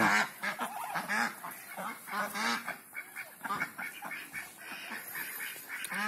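A flock of Muxan ducks, White Pekin × Muscovy crosses, quacking and calling, many short calls overlapping one another.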